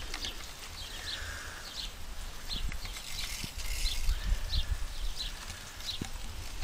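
Hand-pump pressure sprayer spraying soap onto a car in short hissing bursts, twice, over a low steady rumble, with short high chirps repeating about every half second.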